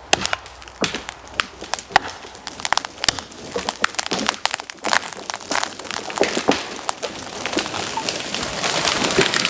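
A pine tree's hinge wood cracking and splintering over and over as the axe-felled tree tips and falls, with a rising rush of noise near the end as it comes down.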